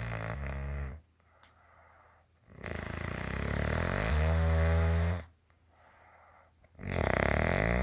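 A woman snoring in her sleep: long, low snores come about every four seconds, each lasting two to three seconds, with quiet breathing in the gaps between them.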